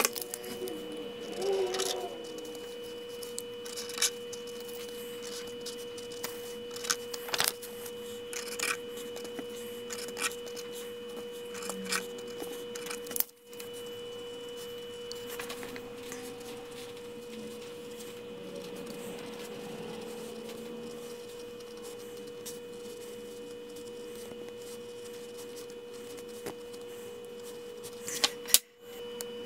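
A steady mid-pitched hum with a fainter high whine over it, and scattered light clicks and taps from a pen and tape being handled on a wooden bench.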